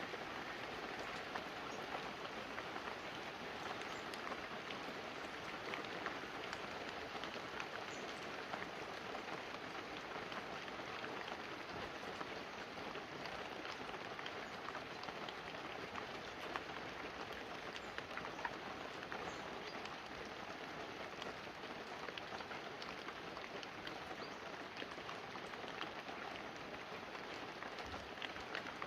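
Light, steady rain falling on banana leaves and a roof: an even hiss with many separate drop taps scattered through it.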